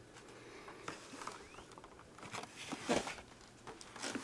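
Light handling of cardboard and paper packaging: scattered small taps and knocks with some rustling, the loudest knock about three seconds in.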